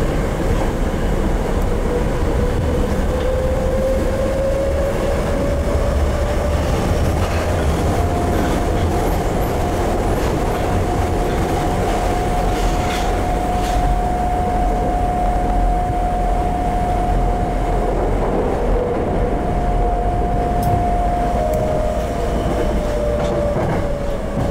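Tokyo Metro 02 series subway car running, heard from inside the car: the whine of its Toshiba IGBT-VVVF inverter drive over the low rumble of the wheels on the track. The whine rises in pitch over the first several seconds, holds steady, then falls near the end, with a few brief clicks from the wheels.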